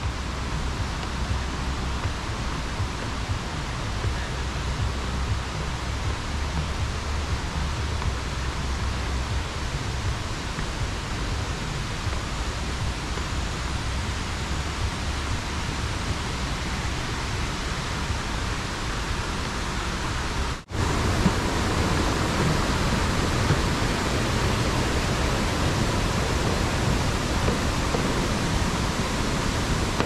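Steady rush of river water and waterfall, an even noise with no pitch. After a brief break about two-thirds of the way in it is a little louder.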